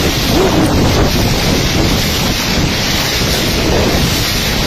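Typhoon wind buffeting the phone's microphone in a loud, steady rush, over the sound of storm-surge floodwater flowing past.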